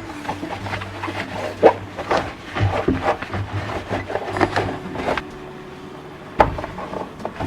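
Household handling sounds: irregular light clicks, knocks and rubbing of objects being moved, with a few sharper knocks standing out, one of them about six and a half seconds in.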